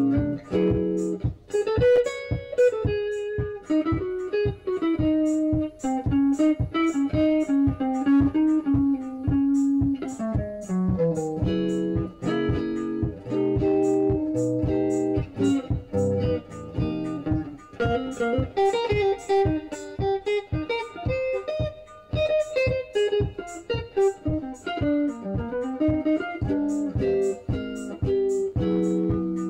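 Electric guitar played through a small Fender combo amplifier: an improvised melodic line of single picked notes, several a second, moving up and down the neck without a break.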